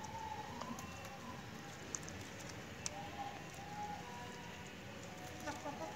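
Aseel chickens pecking at greens on a concrete floor: soft, short clucking calls now and then, and a couple of sharp taps on the concrete.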